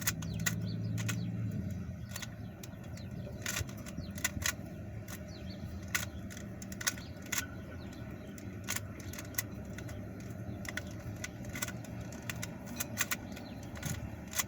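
Rubik's Cube being turned fast, its plastic layers clicking and clacking in quick irregular bursts as one face is solved. A low hum sounds under the first couple of seconds.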